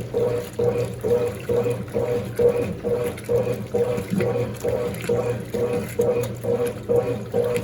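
Mondial Baby BLK20 washing machine agitating a load in water: the motor hums in short pulses about twice a second as the agitator swings back and forth, with water sloshing.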